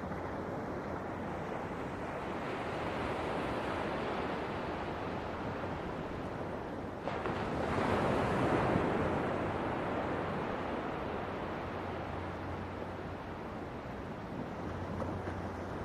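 Ocean waves washing in a steady rush, with one wave breaking louder about seven seconds in and then easing off.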